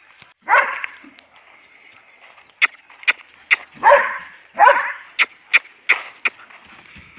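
A dog barking at a horse as it drives it: three loud barks, one about half a second in and two close together around four seconds in, with a run of sharp short clacks between and after them.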